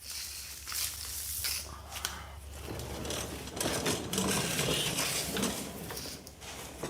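Hand work on metal car parts: irregular scraping, rubbing and clicking of tools and metal, with no steady power-tool run.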